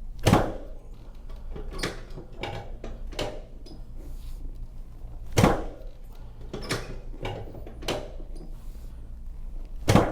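Three loud thumps about five seconds apart, with lighter knocks between them, from a patient's body and leg being worked on a chiropractic treatment table during a hip adjustment.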